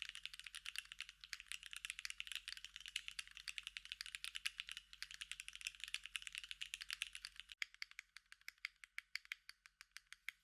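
Typing on a Sangeo65 mechanical keyboard with Gateron China Joy switches: a fast, dense run of keystrokes, then, about seven and a half seconds in, a sudden change to slower, separate keystrokes.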